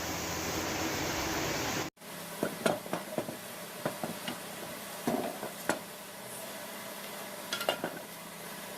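Steady workshop machine noise that cuts off about two seconds in, followed by scattered metallic clicks and light knocks of metal parts being handled and tapped, some ringing briefly, in small clusters.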